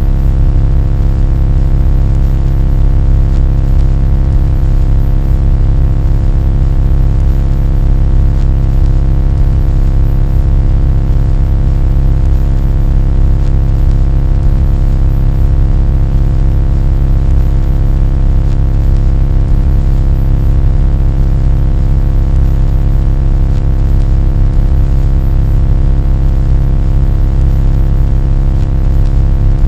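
Loud, unchanging drone: a heavy low rumble with many steady tones stacked above it and a faint thin high whine.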